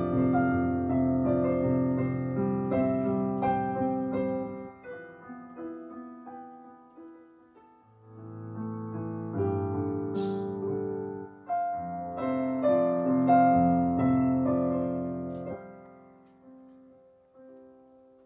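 Background piano music: slow sustained chords in two phrases, the second beginning about eight seconds in, then fading out near the end.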